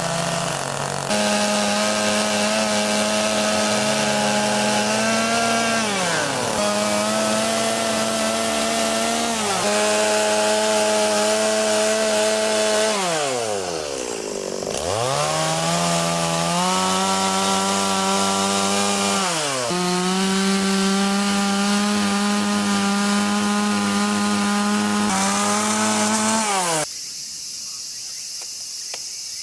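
Two-stroke chainsaw running at high revs while carving into wood. The engine speed drops and climbs back several times as the throttle is eased off and opened again, once falling almost to idle. Near the end the engine note gives way to a quieter hiss.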